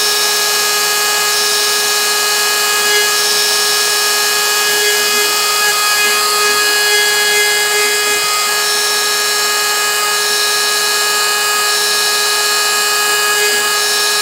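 Router spindle on a Shapeoko 3XL CNC machine running with a steady high whine while its 90-degree V-bit engraves lettering into pine.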